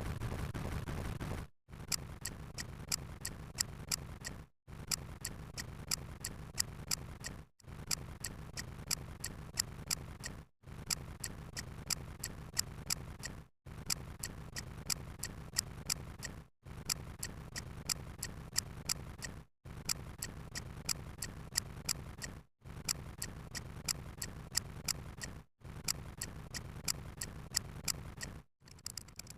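Looped sound effect of fast, even clicking ticks over a low hum. Each stretch of about three seconds breaks off in a brief silence before the loop starts again.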